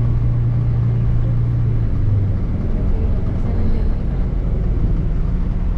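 Airport apron shuttle bus running, a steady engine hum and road rumble heard from inside the bus; the hum fades about two seconds in, leaving the rumble.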